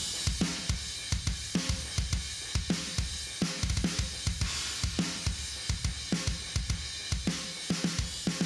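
Thrash metal drum track: a fast drum-kit beat with bass drum and snare hits under steady cymbals.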